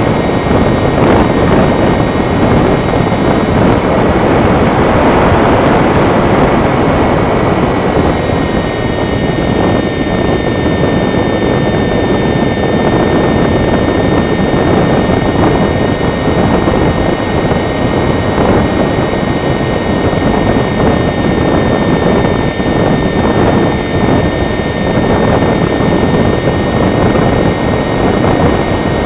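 Onboard sound of an HK Fox foam RC motor glider in powered flight: its electric motor and propeller whining steadily, under heavy wind noise on the model's camera microphone. The whine shifts slightly in pitch about eight seconds in.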